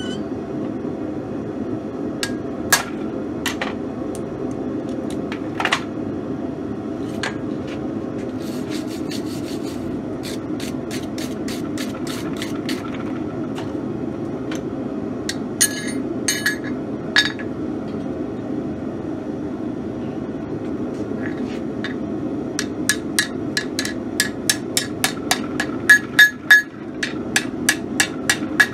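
Hand hammer striking a red-hot steel bar on an anvil: a few scattered knocks and clinks of tools being handled at first, then quick, regular blows at about four a second in the last several seconds. A steady hum runs underneath.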